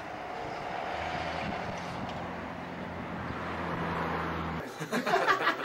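Road traffic with a vehicle engine running, a steady low hum that cuts off suddenly about four and a half seconds in.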